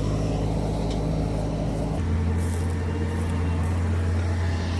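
Truck running on the road, heard from inside the cab: a steady low engine and road drone that shifts to a deeper, stronger hum about two seconds in.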